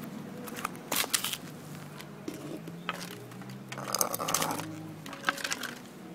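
Cat food packaging being handled: sharp clicks, then a crinkly rustle of plastic about four seconds in, over a steady low hum.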